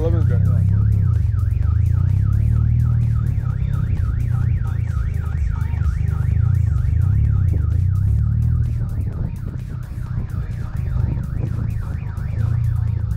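A warbling, siren-like electronic tone sweeping up and down about five times a second over a deep, throbbing bass; the warble fades out about nine seconds in.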